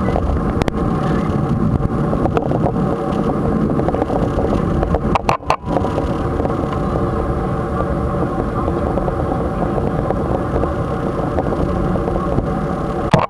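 Boeing 747-400 cabin noise during the climb after take-off: the jet engines' steady roar heard from inside the cabin, with several steady engine tones. The sound briefly drops out twice about five seconds in, and a click comes near the end.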